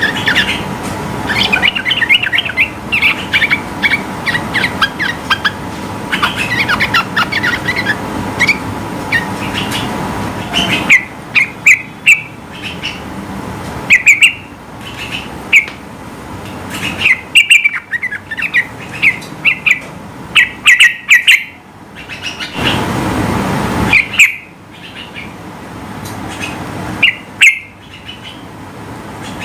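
Yellow-vented bulbul (trucukan) singing: fast runs of short chirps at first, then loud separate whistled bursts. A brief rushing noise passes about two-thirds of the way through.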